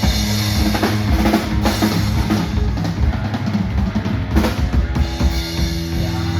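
Live band playing: drum kit with kick and snare hits over sustained bass and guitar, with a heavy crash about four and a half seconds in.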